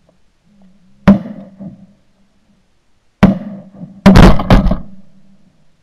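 Shotgun shots at ducks: a single shot about a second in, then a quick volley of three or four shots from about three seconds in, each a sharp, loud report with a short echo.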